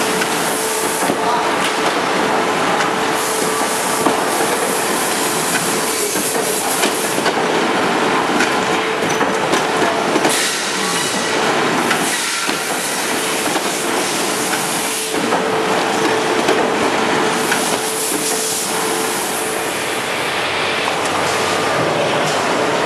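Core veneer jointer (veneer composer) running: a steady, loud mechanical clatter of feed rollers and conveyors over a constant hum, with many small clicks and knocks as the veneer sheets are fed through.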